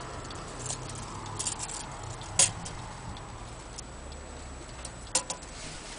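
A few irregular sharp clicks and taps as a steel tape measure is handled against a wooden clock case. The loudest click comes about two and a half seconds in, and two more come close together near the end.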